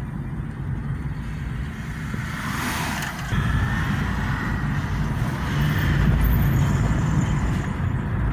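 Engine and tyre road noise heard inside a moving car's cabin: a steady low rumble that grows louder about three seconds in, just after a brief swell of rushing noise.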